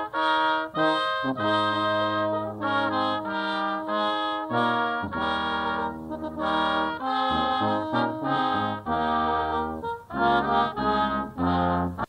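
Military brass band playing the national anthem slowly, in held chords that change about once a second.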